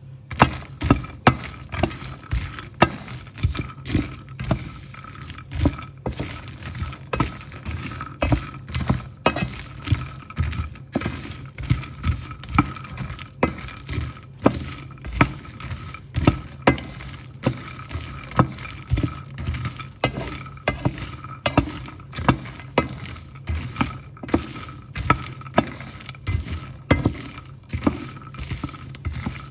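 Peanuts being dry-roasted in a pan and stirred with a spatula: repeated scraping, rattling strokes about one to two a second as the nuts are tossed against the pan.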